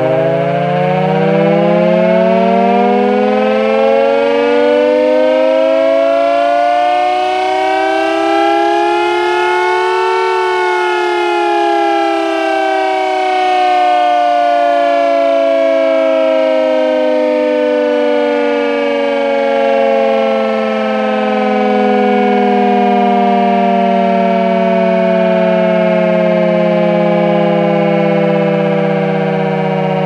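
Castle Castings air-raid siren winding up, its wail rising in pitch for about the first ten seconds, then slowly falling as it runs down.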